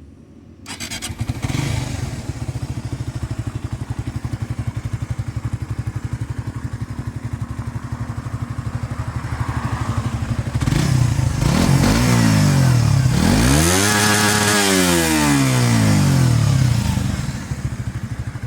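Suzuki GSX-R150's single-cylinder four-stroke engine through its stock exhaust. It starts about a second in and idles steadily, then is revved: a short blip, then a longer, louder rise and fall in revs before it drops back to idle.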